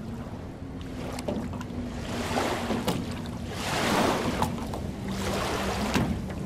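Small lake waves lapping onto a sandy shore, each one washing in and sliding back, the largest about four seconds in, with small splashes. A faint low steady hum runs underneath.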